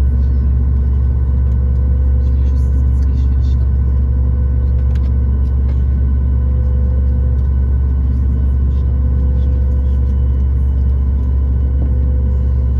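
Steady low drone inside the cabin of a Boeing 737-8 MAX taxiing, its CFM LEAP-1B engines at low taxi power with the air conditioning running, plus a faint steady whine over the hum.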